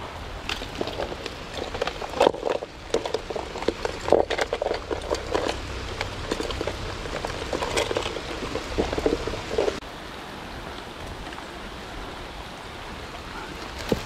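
Rain falling steadily, with irregular knocks and rustling from movement over about the first ten seconds. The movement noise stops about ten seconds in, leaving the steady rain.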